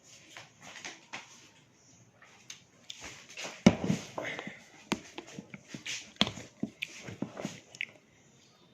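Close-up eating sounds of a person chewing fried fish with rice: irregular wet mouth smacks and clicks, the loudest about three and a half seconds in.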